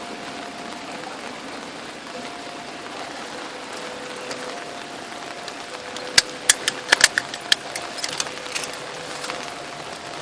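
Heavy rain falling with a steady hiss. About six seconds in, a quick cluster of sharp taps, the loudest sounds here, lasts for about two seconds.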